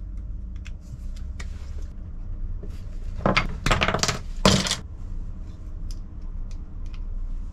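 Light metallic clicks and scrapes of a small screwdriver opening the pinched end of a strip of lead came, then a few louder knocks and clinks about three to four and a half seconds in as the lead strip is set against the wooden frame on the board.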